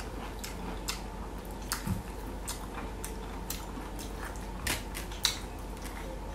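Chewing boiled bamboo shoot, with scattered small crisp clicks and two louder ones a little after halfway.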